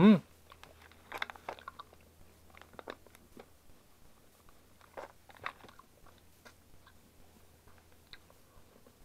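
A brief hum of a voice at the start, then scattered crunches and clicks of Coris Fue Ramune candies being chewed. These are hollow pressed ramune tablets shaped as whistles.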